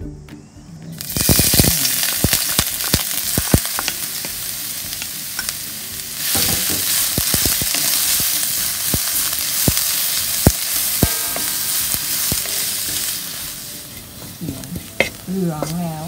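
Julienned ginger deep-frying in hot oil in a wok, sizzling loudly, with a wooden spatula scraping and clicking against the wok as it is stirred. The sizzle dies down near the end as the ginger fries golden and crisp.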